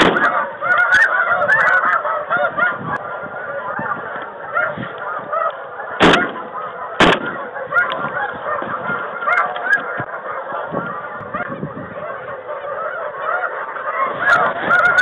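A large flock of snow geese calling in a dense, continuous chorus of honks. Two shotgun shots go off about a second apart near the middle.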